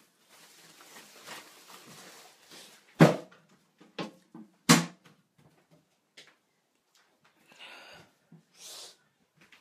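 Rustling handling noise of a phone being moved about, with two loud sharp knocks, the first about three seconds in and the second a second and a half later.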